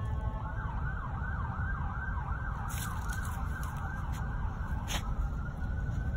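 A distant emergency-vehicle siren switching from a steady wail to a fast yelp, rising and falling about two to three times a second. It eases back into a slow wail about five seconds in. A steady low rumble runs underneath.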